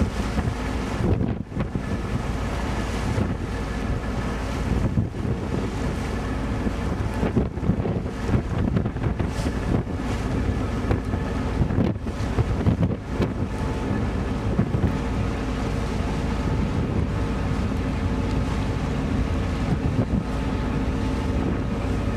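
Wind buffeting the microphone on the deck of a moving passenger ferry, in uneven gusts, with the ship's engine running steadily as a low hum underneath.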